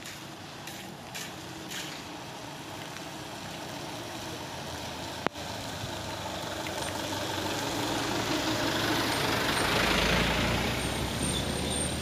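A light diesel box truck approaches on a wet road and passes close by, its engine and tyre hiss growing steadily louder and loudest about ten seconds in.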